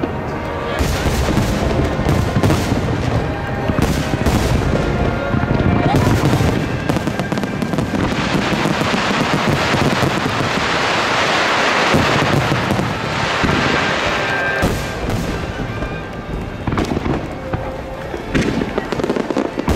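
Large aerial fireworks shells bursting in quick succession, with booms and a dense crackling shower of bursts through the middle of the stretch.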